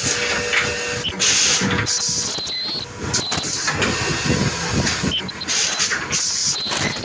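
Rotary table ultrasonic plastic welding machine running its cycle: repeated bursts of hiss, each about half a second to a second long, with thin steady tones that come and go.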